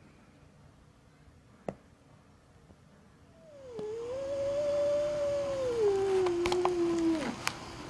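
A cat's long, drawn-out angry yowl, starting about halfway through and lasting about four seconds. It wavers, then sinks lower in pitch and breaks off, with a few sharp clicks near the end.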